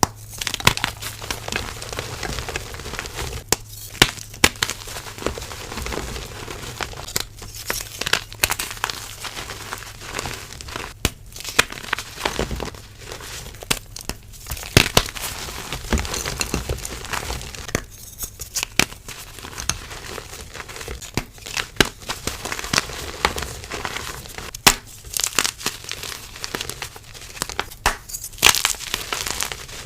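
Soft pressed gym chalk reforms being crushed and crumbled: a dense run of crunching and crackling, with short pauses every few seconds.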